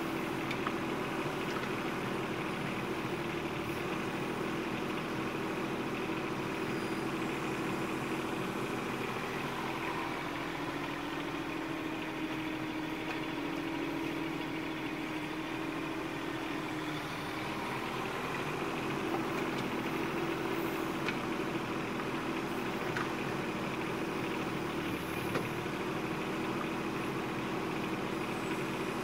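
Bobcat 418 mini excavator's diesel engine running steadily while the arm digs and swings, its note shifting a little in pitch around the middle.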